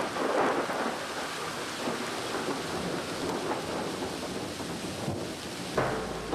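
Thunderstorm: a long roll of thunder over steady rain hiss, easing slowly. Low sustained music comes in near the end.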